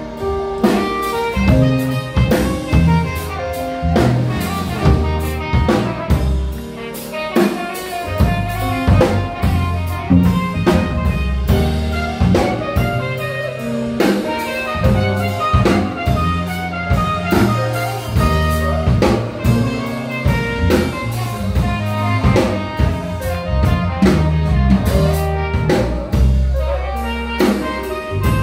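Live band playing: electric guitar, electric bass guitar and drum kit, with a steady drum beat.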